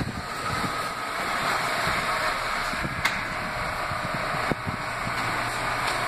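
An R179 subway train standing at the platform with its doors open, its onboard equipment running as a steady hiss and hum. There is a sharp click about three seconds in and a knock about a second and a half later.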